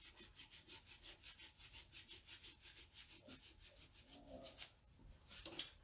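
Damp board-eraser sponge, a magic-eraser-like pad, scrubbing a wet silk-screen stencil to clean chalk paste off it. It makes a faint, rhythmic rubbing of about five strokes a second, with a couple of slightly louder strokes near the end.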